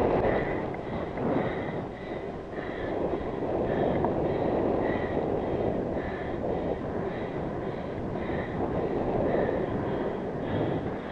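Wind rushing over a helmet camera's microphone as a road bike rolls along at about 12 to 14 mph, swelling and easing with the rider's movement, with tyre noise from the tarmac beneath. Faint short higher-pitched sounds recur about once a second.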